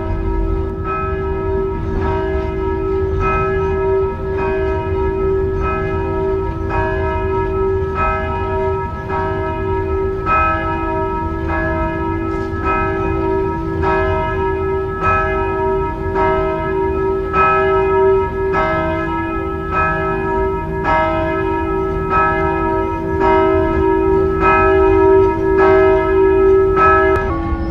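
Church bells ringing in a steady peal, with strikes coming roughly one and a half times a second over a held hum. The peal cuts off just before the end.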